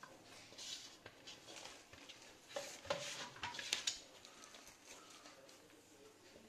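Hands working crumbly ragi dough in a metal pan: fingers scraping, pressing and patting the dough against the metal. The scraping grows louder and busier about two and a half seconds in, with a few sharp clicks against the pan.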